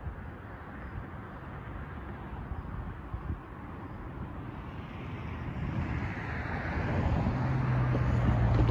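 A car approaching on the road, its tyre and engine noise growing steadily louder over the second half, with a low engine hum coming in near the end as it passes close.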